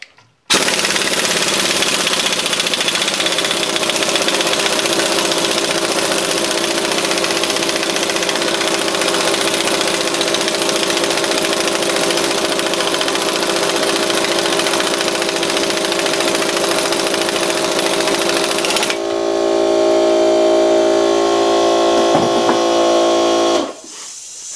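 Ingersoll Rand air impact wrench hammering steadily as it drives the forcing screw of a ball joint press, pushing a rusty ball joint out of its steering knuckle. About 19 seconds in the hammering gives way to a steady whine for a few seconds, then the wrench stops.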